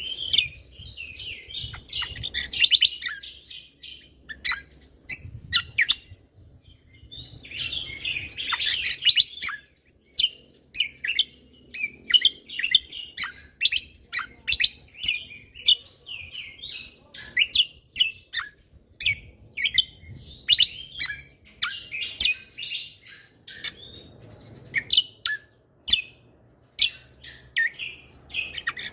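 A cucak kombo (kecial kombo) songbird singing nonstop. It gives dense warbling bursts between runs of short, sharp chips, several a second.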